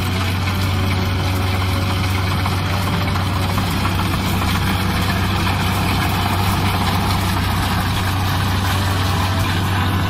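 Kubota DC-70 rice combine harvester running steadily while cutting and threshing rice: its diesel engine gives a steady low hum under an even mechanical noise from the header and threshing works.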